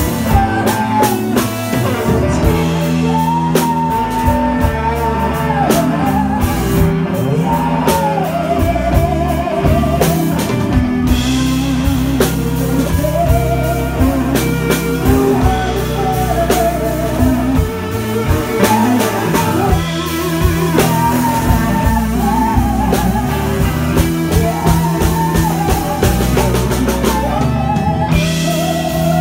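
Live blues-rock band playing: a woman singing lead with vibrato over electric guitar, electric bass and a drum kit.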